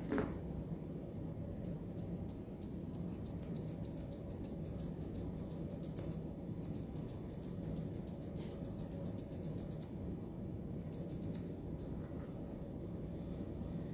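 Grooming scissors snipping quickly through a dog's coat, a fast run of light clicks with short pauses, over a steady low hum.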